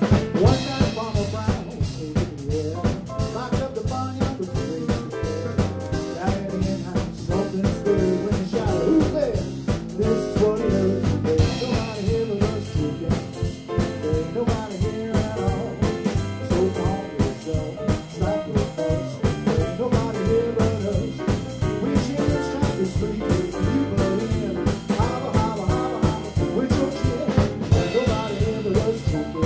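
Jump blues band playing an instrumental passage: saxophone, piano, bass and drums keeping a steady swing beat.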